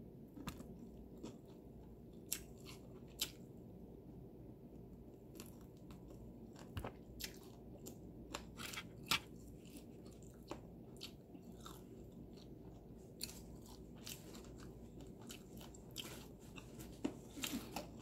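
Faint, close-miked chewing of crispy-breaded fried chicken, with scattered short crunches and clicks over a steady low hum.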